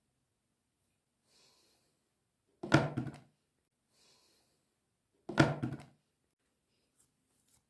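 Two dull thumps about two and a half seconds apart, each preceded by a faint brief rustle.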